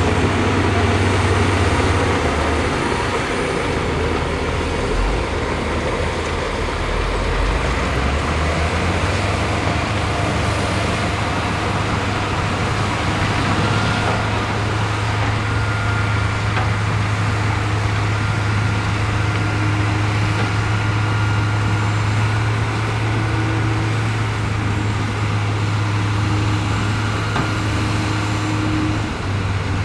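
Heavy earthmoving machinery's diesel engine running steadily and loudly. A faint high whine comes and goes in the second half.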